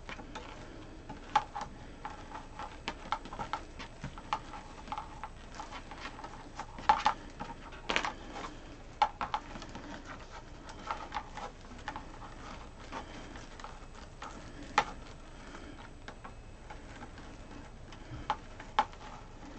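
Plastic deco mesh being pulled and scrunched through a wire wreath frame: light rustling with irregular small crackles and clicks, a few sharper ones.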